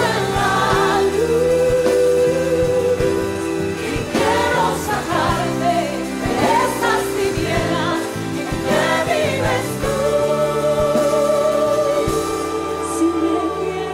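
Christian worship song: singing over steady instrumental backing, with one long held note in the second half.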